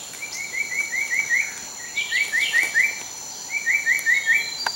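An animal calling in three quick bursts of short rising chirps, four to seven notes each, over the steady high drone of forest insects.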